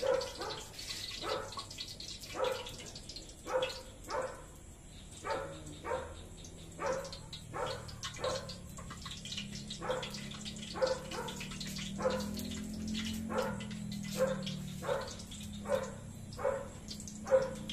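A dog barking over and over, short sharp barks at about two a second.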